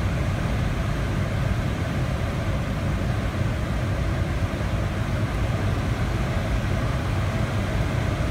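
Steady rush of airflow around the canopy inside the cockpit of a Grob 103 two-seat glider in engineless gliding flight, a low rumble with a hiss above it.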